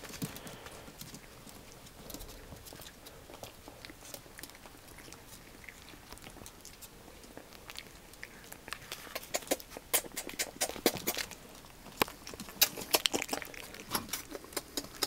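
Dachshund puppies chewing and moving close by: a scatter of small, sharp clicks and crunches that grows thicker and louder from about halfway through.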